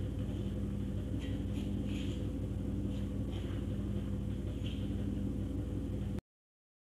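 A steady low hum, with a few faint scrapes of a plastic spatula stirring ground tomato sambal in a stone mortar. The sound cuts off suddenly about six seconds in.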